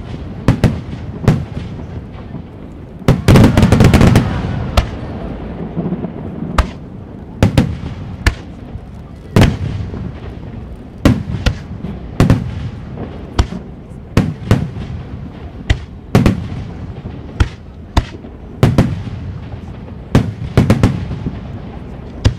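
Aerial firework shells bursting in a steady string of sharp booms, about one a second, with a dense, loud cluster of bangs and crackle about three to four seconds in.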